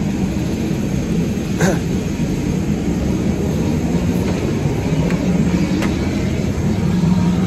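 A helicopter's engine and rotors running close by: a loud, steady rumble. A brief high squeak comes about a second and a half in.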